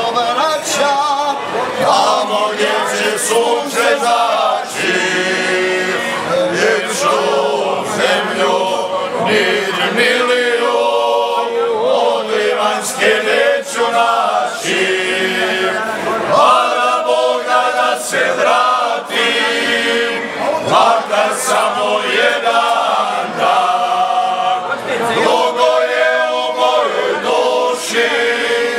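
A small group of men singing ganga, the traditional unaccompanied polyphonic folk singing of the Dinaric hinterland, voices held together in close harmony. They sing phrase after phrase, each a few seconds long, with short breaks between.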